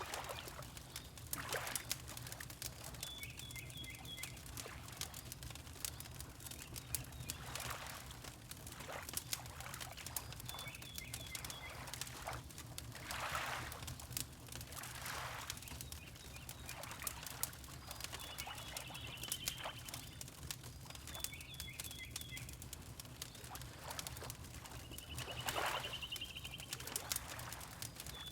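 Wood fire crackling in a fireplace over a steady low hum, with water lapping in soft swells. A bird repeatedly calls a quick series of short high notes every few seconds.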